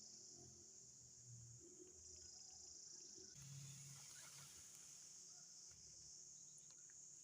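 Faint, steady high-pitched chorus of insects. A brief rustling noise comes in about three and a half seconds in and lasts about a second.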